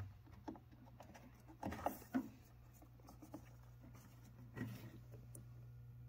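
Faint handling noises, a few soft rustles and light knocks, as the rubber pressure-switch tubing on a 90% gas furnace is handled, over a steady low hum.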